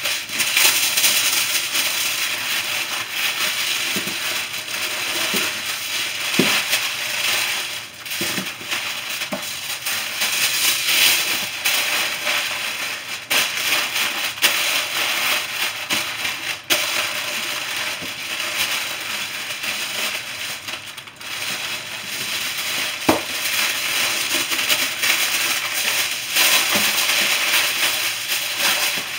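Aluminium foil crinkling and rustling continuously as it is wrapped and pressed around a lamb shoulder, with a few sharper crackles.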